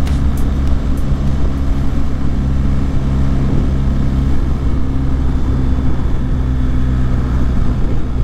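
BMW R 1250 GS boxer-twin engine running at a steady cruise, with wind rush over the microphone.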